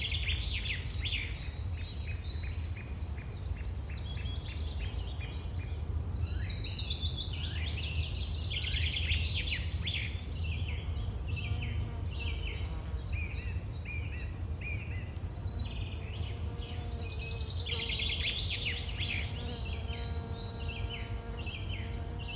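Outdoor ambience of several small birds chirping and trilling in quick overlapping calls, over a steady low rumble. Near the end a steady buzzing hum joins in.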